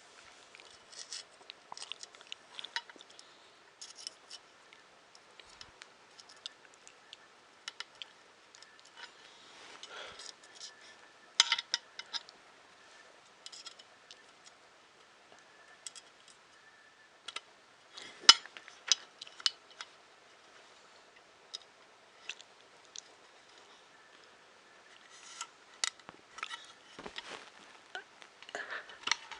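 Irregular small clicks and taps of small screws, nuts and parts of a 3D printer kit being handled and screwed together, with a few sharper clicks about a third and two thirds of the way through.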